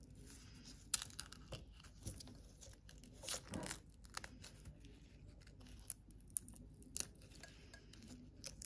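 Dry outer sheath of a lemongrass stalk being peeled off by hand: faint tearing and crackling, with scattered sharp clicks.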